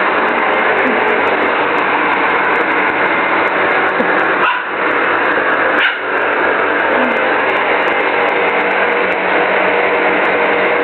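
Vacuum cleaner running steadily while a Lhasa Apso puppy barks and yips at it.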